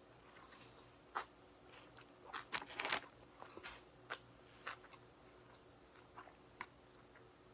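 Close-up chewing of a Subway sandwich on Italian bread with lettuce, pickles and green peppers: moist crunching bites, busiest about two to three seconds in, then scattered smaller crunches, over a faint steady hum.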